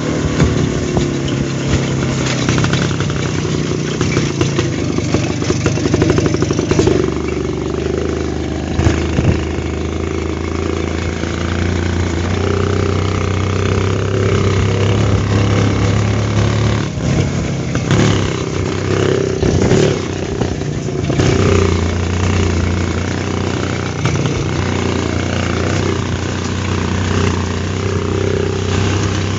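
WSK two-stroke single-cylinder motorcycle engine running while riding, its note rising and falling with the throttle. A few short knocks come about two-thirds of the way through.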